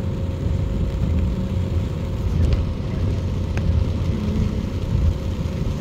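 Car cabin noise while driving on wet streets: a steady low rumble of the engine and tyres, with a couple of faint clicks.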